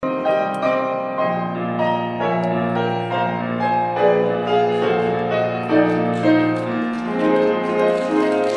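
Instrumental background music with piano: a melody over long held low notes.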